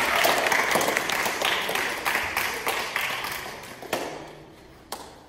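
Audience applause, a dense patter of many hands clapping that thins out and dies away over the last couple of seconds, ending in a few scattered single claps.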